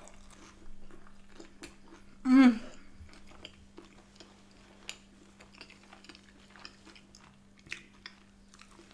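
Close-up chewing and wet mouth sounds of a person eating a mouthful of pizza, with a brief, wavering hummed "mmm" about two seconds in. A faint steady hum runs underneath.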